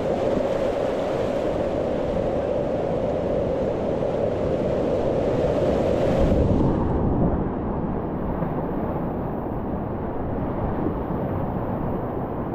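Whitewater rapids rushing, a dense, steady wash of churning river water with wind buffeting the microphone. About seven seconds in, the sound turns duller as the high hiss drops away.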